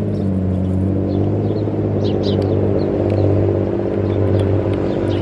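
Tattoo machine buzzing steadily at close range.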